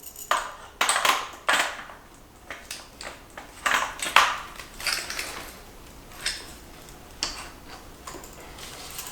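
Pressure washer parts being handled and fitted together: a string of sharp clicks, knocks and clatters at irregular intervals, loudest near the start and around four seconds in.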